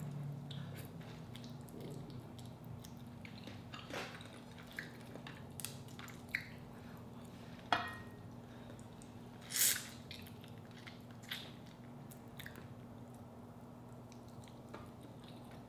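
Eating boiled crawfish with coconut sauce: scattered small wet clicks, squishes and shell cracks as the meat is picked from the shells, dipped in the sauce and bitten. The loudest crack comes about ten seconds in, over a faint steady hum.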